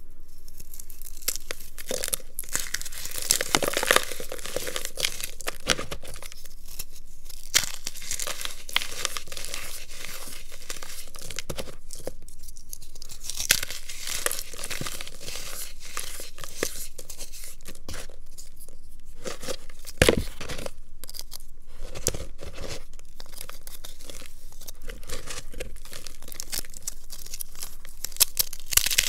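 Reformed blocks of baking soda, cornstarch and gym chalk crushed by hand: a continuous crumbly crunching and crackling with a few louder cracks scattered through.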